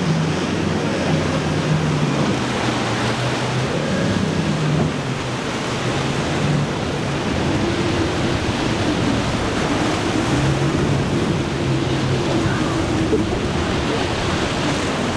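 Waves rushing and wind buffeting the microphone, with the low, steady drone of boat engines underneath.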